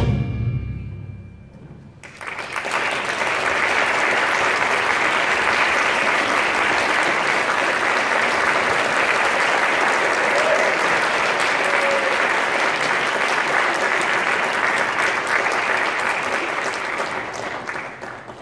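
An orchestra's final chord dies away, and about two seconds in the audience starts applauding; the applause holds steady and fades out near the end.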